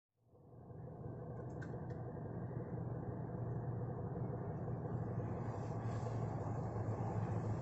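A low, steady vehicle rumble fades in after a moment of silence and grows slowly louder.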